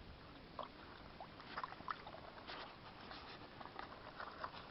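Faint small water splashes and light knocks as caught fish are handed one by one from a bucket back into the water, with irregular short ticks and drips.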